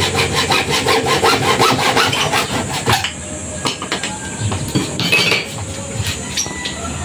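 Hand saw cutting through a plastic water pipe. Quick, even back-and-forth strokes, about five a second, for roughly three seconds, then slower, more uneven strokes.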